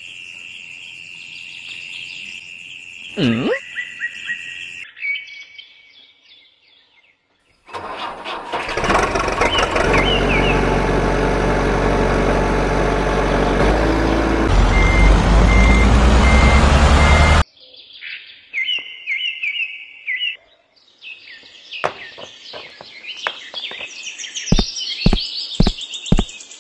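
Dubbed-in sound effects: after a brief whoosh, a truck engine starts and runs for about ten seconds, rising in pitch as it revs near the end, then cuts off suddenly. Bird chirps follow, then a run of sharp knocks.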